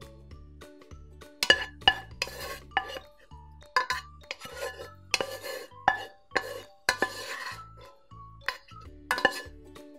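Wooden spoon scraping food out of a metal pot into a glass baking dish: a run of irregular sharp knocks of the spoon against the pot, with short scraping rubs between them.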